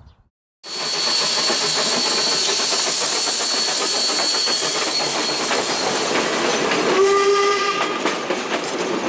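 Steam locomotive running with loud steam hiss and a fast clatter, starting abruptly about half a second in, with a brief steam whistle blast about seven seconds in.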